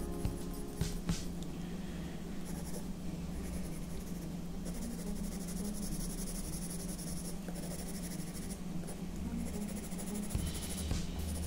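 Soft 8B graphite pencil scratching across drawing paper in repeated shading strokes, coming and going, over a low steady hum.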